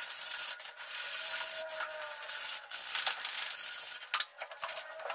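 120-grit sandpaper rubbed over the refrigerator's painted metal door in uneven scratchy strokes, taking off the rough edges.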